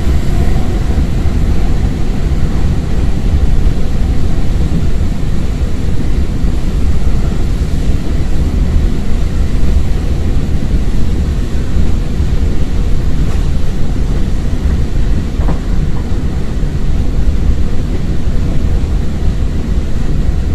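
Running noise of a Siemens Desiro ML (class 460) electric multiple unit at speed, heard through an open window: a loud, steady rush of air and wheel-on-rail rumble, heaviest in the low range.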